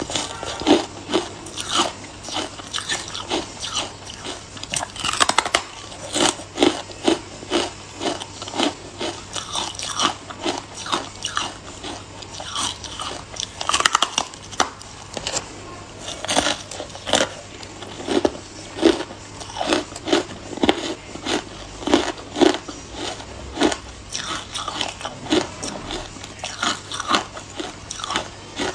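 White carbonated ice being bitten off a thin slab and chewed, a steady run of crisp crunches about two a second.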